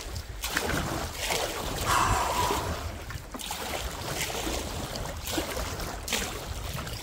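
Wind buffeting the microphone and choppy, whitecapped lake water splashing against a canoe paddled into a headwind, with a few louder splashes now and then.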